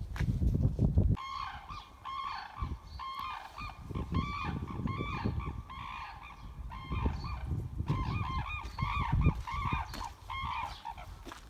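A flock of red-crowned cranes calling: many short, overlapping trumpeting calls, starting about a second in and repeated steadily, with a brief lull around the middle.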